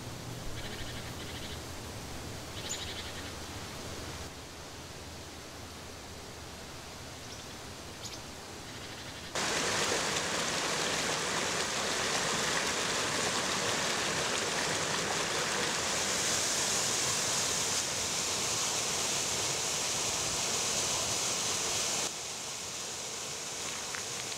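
Steady rushing water that comes in suddenly and loud about nine seconds in, dropping a step near the end to a stream splashing over a small waterfall. Before it there is only a quieter low hum and hiss.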